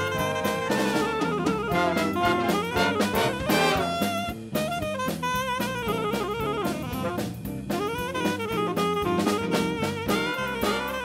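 Background music: upbeat jazz with saxophone or brass lead over a drum kit, at a steady level.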